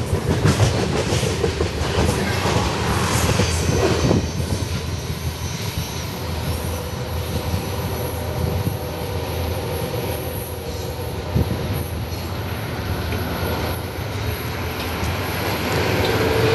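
CSX freight train's insulated boxcars rolling past, steel wheels clattering over the rail joints with a thin high squeal from the wheels, at a steady level.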